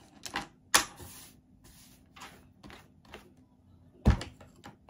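Scattered knocks and light taps of kitchen tools and a peeled mango being handled and set down on a wooden cutting board, with a sharp knock just under a second in and the loudest near four seconds in.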